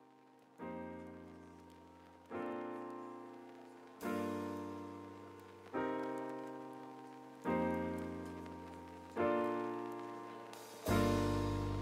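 Background music: slow piano chords, a new chord struck about every 1.7 seconds and each left to ring and fade, seven in all.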